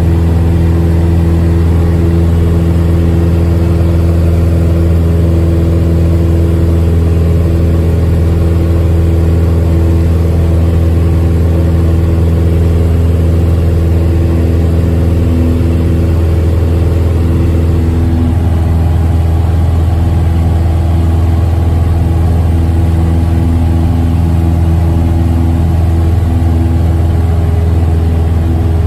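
Single-engine light aircraft's piston engine and propeller running steadily at climb power, heard loud inside the cockpit as a low, even drone. The tone shifts slightly about two-thirds of the way through.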